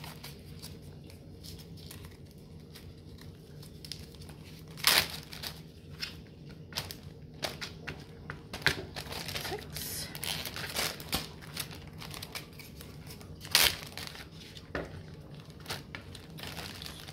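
Thin plastic zip-top sandwich bags crinkling as they are pulled open and handled and cheese cubes are dropped in: a run of short, irregular crackles, loudest about five seconds in and again later on, over a steady low hum.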